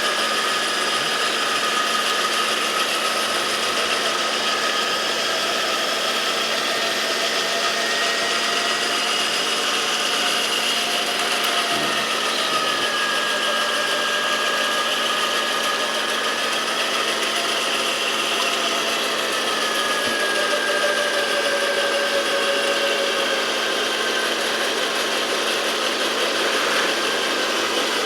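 Electric winch motor running under load during a vehicle recovery: a steady mechanical whine that wavers slowly in pitch.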